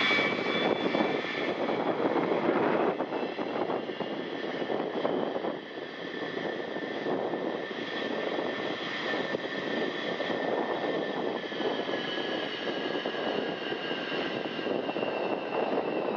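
Boeing E-3A AWACS's four TF33 turbofan engines running at high power: a steady jet noise with a high whine over it that drops slightly in pitch near the end.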